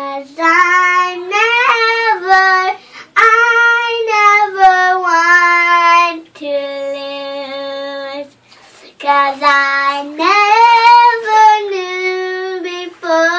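A young girl singing alone without accompaniment, holding long, drawn-out notes and sliding up and down between them, with two brief breaths for pauses.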